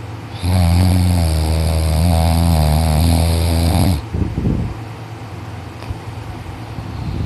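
Heavy snoring from a sleeping teenager: one long, loud, steady snore lasting about three and a half seconds, then a short breathy sound a moment later, with the next snore starting near the end.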